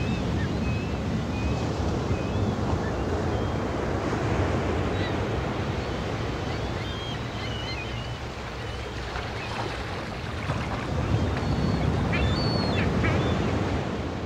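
Waves and wind, a steady rushing noise, with many short high chirping calls scattered through it.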